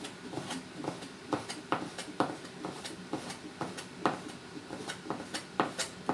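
Cleaver chopping strips of fresh coconut meat on a plastic cutting board: a run of sharp knocks of the blade striking the board, about two a second and unevenly spaced.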